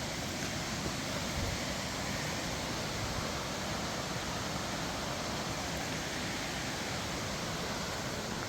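Steady rushing of fast-flowing stream water, an even hiss without breaks.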